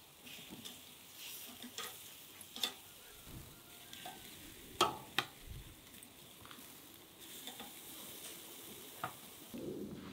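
Marinated chicken sizzling on a steel grate over charcoal, with metal tongs clicking sharply against the grate several times as pieces are laid down.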